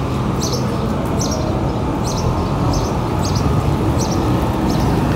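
A steady low motor-vehicle engine rumble, with a short high chirp repeating evenly about twice a second over it.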